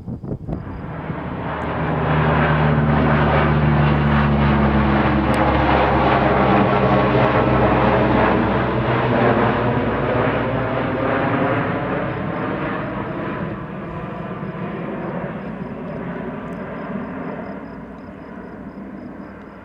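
C-130E Hercules four-engine turboprop flying low overhead, its propellers giving a loud steady drone. The drone comes up sharply in the first two seconds, then slowly fades as the aircraft moves away.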